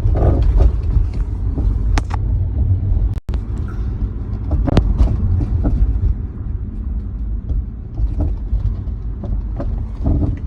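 Car driving over bumps, heard from inside the cabin: steady low road rumble with irregular sharp clunks, the loudest about two seconds in and just before five seconds. The clunks come from a loose part beneath the floor that the owner has not identified; tires, brakes, suspension and splash guard have been checked, and he wonders whether the battery is loose.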